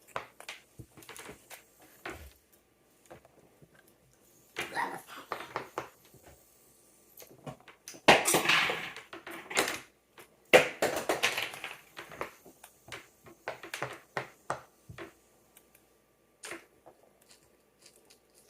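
Scattered clicks and taps of a silicone pop-it fidget board game being played, with two louder clattering stretches of about a second and a half, about eight and ten and a half seconds in.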